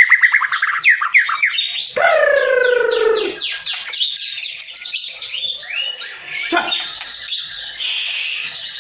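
Murai batu (white-rumped shama) singing loudly: a fast run of repeated rising whistled notes, then about two seconds in a long falling note, then a varied, higher warble.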